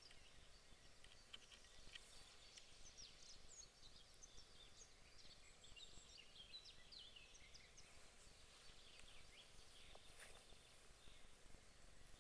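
Near silence of a still forest pond with faint songbirds: many short high chirps and trills, thickest through the middle and thinning near the end.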